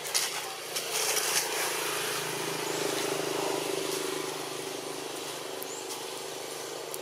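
A motor vehicle's engine droning steadily, swelling about two seconds in and easing off again, over a hiss of outdoor background noise, with a few short rustling noises in the first second and a half.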